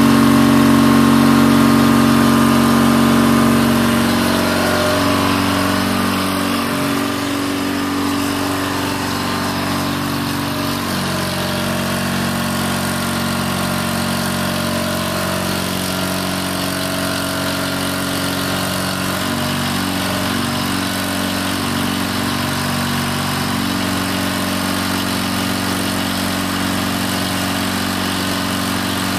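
Engine running steadily at idle, a little louder in the first few seconds, with its pitch shifting slightly a few times.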